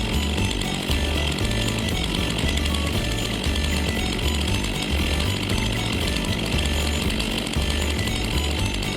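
Chainsaw running steadily, under background music with a repeating bass line.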